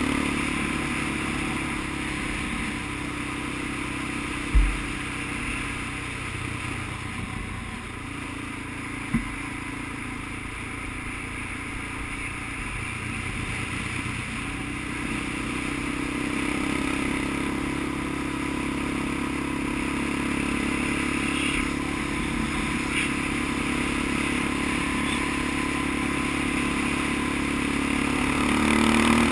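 Small off-road vehicle's engine running steadily along a dirt trail, easing off for several seconds in the middle and then picking up again. Two brief thumps come about four and a half and nine seconds in.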